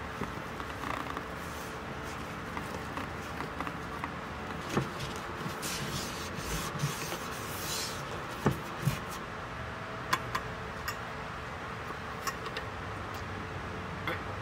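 Household cleaning: a mirror being wiped, with scattered light clicks and knocks of things being handled and a short airy hiss about six to eight seconds in, over a steady background hum.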